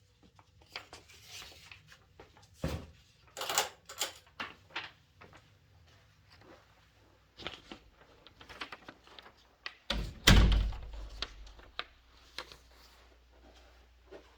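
Scattered clicks and shuffling steps, then a loud door thunk with a low rumble about ten seconds in.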